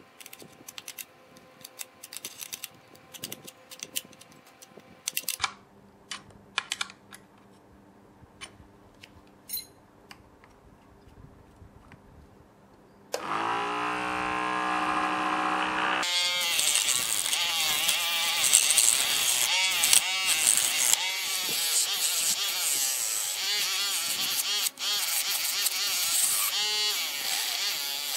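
Scattered clicks and taps of handling, then the small DC motor of a homemade 12V mini lathe starts about halfway in, rising in pitch as it spins up and then humming steadily. A few seconds later a much louder scraping noise takes over, with the motor's pitch wavering under load, as a tool cuts into the spinning workpiece.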